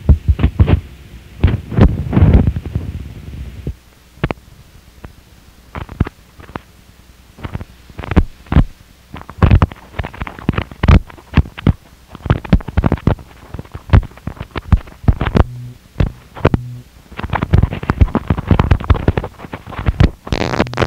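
Harsh noise music: stuttering, irregular bursts of distorted noise and crackle cutting in and out. A dense stretch at the start thins to scattered cracks, then the bursts thicken again, with a short low hum about three quarters of the way through.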